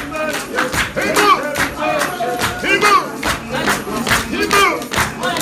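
Church congregation singing and calling out together, several voices overlapping, over a steady percussive beat.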